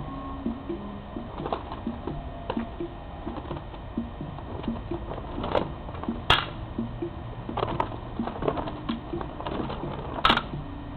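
Irregular sharp slaps and knocks of color guard equipment being handled, a practice rifle and flag pole caught and struck, with two louder cracks about six and ten seconds in.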